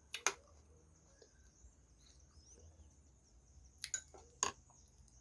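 A spoon clinking against a plate in short sharp taps: twice near the start and twice about four seconds in. Faint birds chirp in the background.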